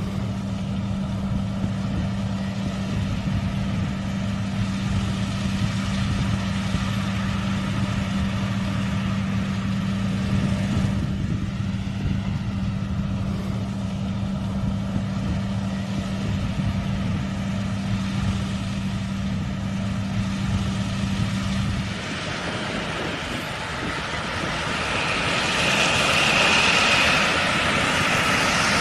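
Combine harvester engine running steadily with a low, even hum. About two-thirds of the way in, the hum changes and the sound grows louder, with a brief high whine.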